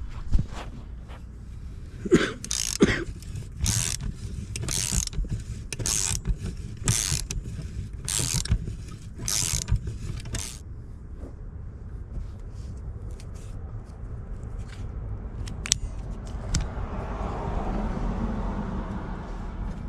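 Hand ratchet clicking in a series of short strokes, about one a second, as bolts on a freshly fitted exhaust manifold are run in, over a steady low rumble. The strokes stop about halfway through, and a softer, steady noise follows near the end.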